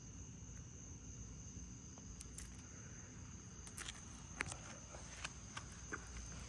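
A few light scattered clicks and clinks from a chainsaw chain being handled, over a steady faint high insect trill.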